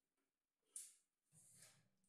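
Faint: a short hiss about three-quarters of a second in, then a handheld corded electric drill's motor starting briefly near the end as its bit goes into a laminated cabinet board.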